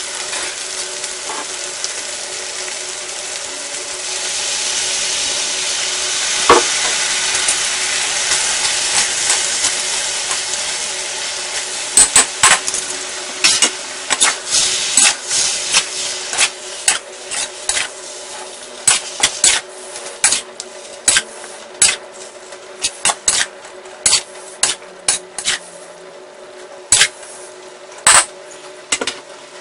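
Sweet potato noodles, chicken and vegetables sizzling in a steel wok. The hiss swells for several seconds from about four seconds in. From about twelve seconds on, the food is stir-fried and tossed, and a spatula strikes and scrapes the wok in a quick run of sharp clanks. A faint steady hum runs underneath.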